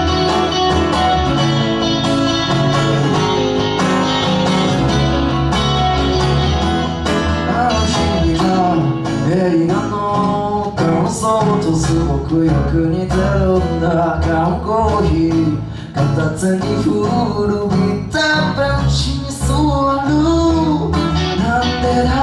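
Live acoustic-rock band playing: a strummed acoustic guitar with electric guitar and bass guitar under it. A voice sings over them from about a third of the way in.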